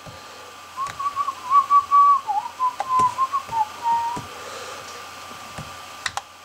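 A person whistling a short, wandering tune for about three seconds. Scattered clicks from a laptop touchpad and keys are heard alongside.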